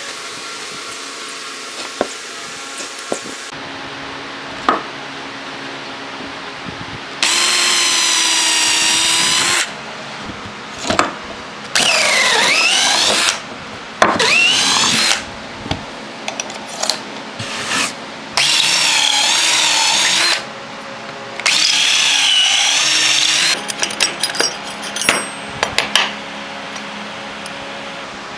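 Power drill boring holes into a plywood tabletop: five runs of one to two seconds each, its whine wavering as the bit bites into the wood. Light clicks and knocks come between the runs.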